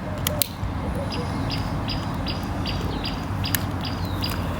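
A small bird chirping: a run of short, high chirps about three a second, over a steady low rumble.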